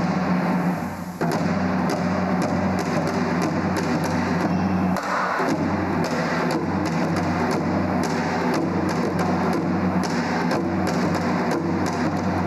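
Korean percussion accompaniment playing the jajinmori jangdan, a repeating 'dung dung dung ddak kung ddak' pattern of deep drum beats and sharp strikes, over steady low tones.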